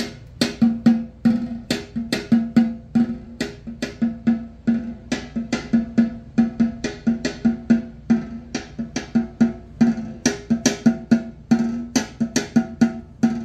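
Percussion test passage of quick, even drum and wood-block-like hits, about four a second, played through Klipsch Heresy loudspeakers driven by an Eico ST-40 7591 tube amplifier to check the stereo image.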